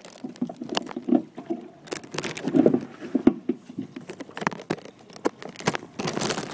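Handling noise from the recording camera or phone being covered and moved about: irregular rubbing, scraping and small knocks and clicks against the microphone.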